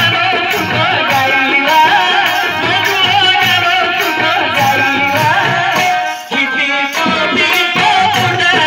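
Live amplified music: an electronic keyboard with drumming and a voice singing into a microphone. The music breaks off briefly a little after six seconds in, then resumes.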